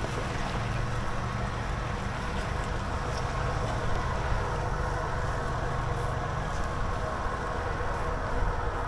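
Car engine running steadily at low revs as the car crawls through a deep off-road rut.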